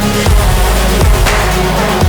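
Background music: an instrumental electronic passage with heavy bass and a steady beat.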